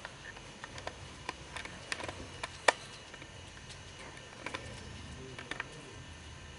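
Scattered light clicks and taps over a low steady hum, the sharpest click about two and a half seconds in, typical of a handheld camera being handled and moved.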